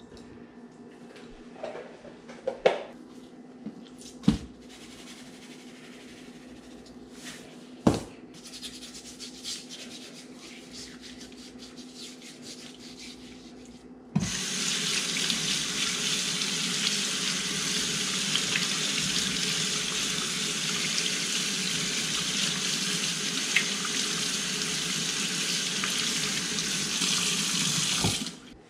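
A few sharp knocks at first, then about halfway through a kitchen faucet turns on and runs steadily into a stainless steel sink, splashing over a largescale sucker as it is rinsed of salt and slime, and shuts off just before the end.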